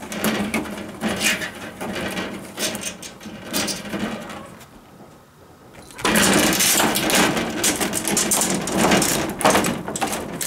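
A cat scratching and clawing at the paper panes of wooden sliding windows and a shoji screen, in quick repeated strokes. There is a brief lull about four and a half seconds in, then louder scratching again.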